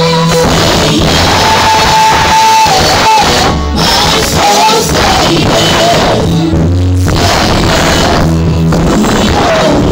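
Live gospel worship song: a woman sings lead through a microphone over an amplified band with electric guitar and bass, holding one long note about a second in.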